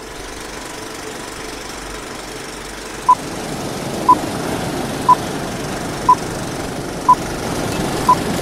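Vintage film-projector sound effect running with a steady mechanical whir and rattle, the kind laid under a countdown leader. About three seconds in, short high countdown beeps sound once a second, six times.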